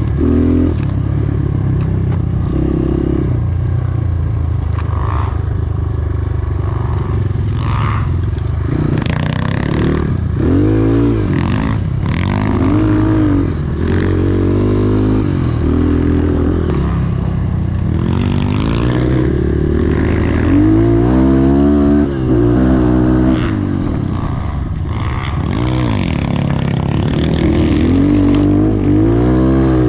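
250 cc enduro motorcycle being ridden off-road, its engine revving up and down over and over as the throttle is worked, with rattling from the bike over rough ground.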